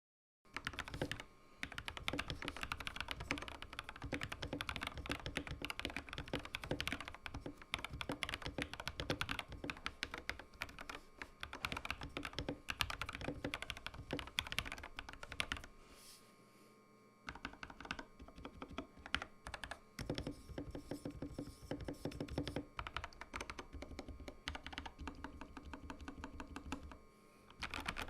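Typing on a Royal Kludge RK84 mechanical keyboard built with pre-lubed Feker x Matcha linear switches, silicone foam and Glorious PBT keycaps: a fast, steady run of keystrokes, pausing briefly about sixteen seconds in and then carrying on.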